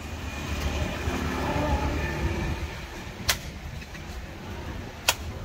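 Fresh coconuts being chopped open with a cleaver: two sharp knocks, about two seconds apart, over a steady low rumble.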